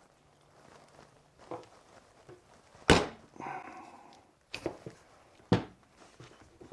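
Sharp clicks and knocks of a hand-operated battery-cable lug crimper closing a terminal onto heavy battery cable, with the loudest snap about three seconds in and a few lighter knocks after it.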